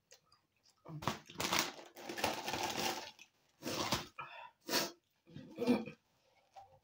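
A woman's breathy huffing through an open mouth as she reacts to the heat of ghost-pepper spicy noodles: one long breath of about two seconds, then three short puffs.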